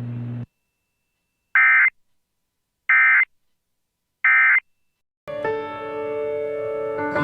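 Emergency Alert System end-of-message signal: three identical short bursts of SAME data tones, about a second apart, closing the severe thunderstorm warning. A low steady hum cuts off half a second in, and music with guitar starts about five seconds in.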